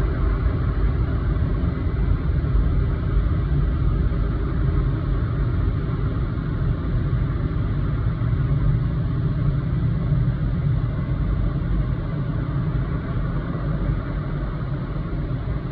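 Automatic car wash heard from inside the car's cabin: a steady, loud rush of water jets spraying over the windscreen and body, muffled by the glass, with a strong low rumble underneath.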